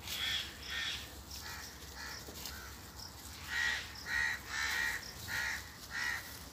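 A crow cawing repeatedly: a few calls at the start, then a run of about five louder caws roughly every half second in the second half.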